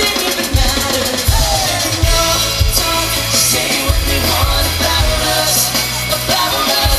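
Live pop-rock band music through a concert PA, loud, with heavy bass beats and a sung melody line.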